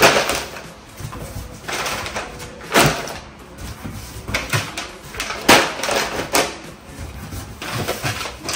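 Kraft paper pouches of peanuts being handled and packed into a cardboard carton: irregular crinkling and rustling of the paper with soft knocks against the cardboard.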